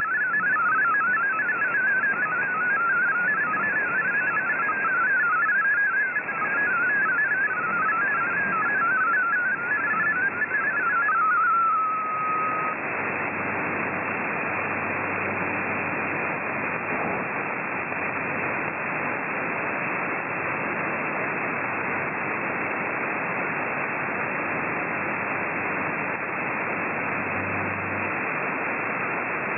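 MFSK32 digital text signal received on shortwave: a fast, jittery warble of tones hopping up and down in a narrow band. About twelve seconds in it ends on a short steady tone, the end of the transmission, and only steady shortwave static and hiss is left.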